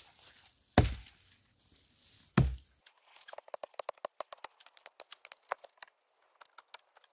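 Two hatchet chops into a wooden branch resting on a log, about a second and a half apart, cutting a point onto the stick. These are followed by a run of light crackling and rustling as dry twigs and leaves are handled.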